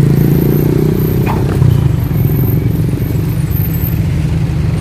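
Motorcycle engine idling close by, steady and even, with street traffic. A brief knock about a second and a half in.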